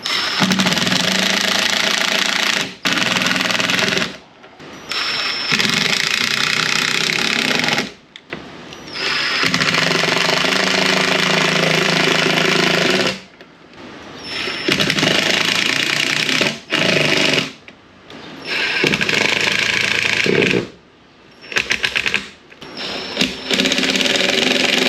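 Power screwdriver driving screws into a board, in about eight bursts of one to four seconds each with short pauses between, one screw after another.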